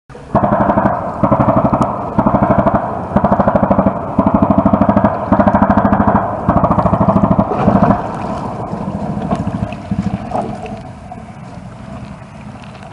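Navy guns firing in rapid bursts about 2 km away: about ten bursts, each a fast string of reports lasting under a second, coming roughly once a second. About eight seconds in, the bursts stop and a lower rumble remains, with a few single reports.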